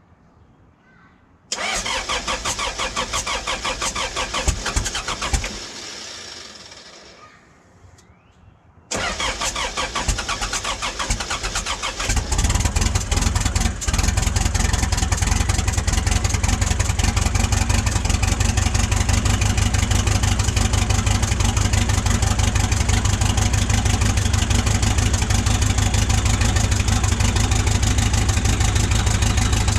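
Terex PT75 track loader's diesel engine being cranked on the starter, freshly fitted with new injectors: a few seconds of cranking that dies away without starting, then a second crank that catches about twelve seconds in. It then runs steadily at idle.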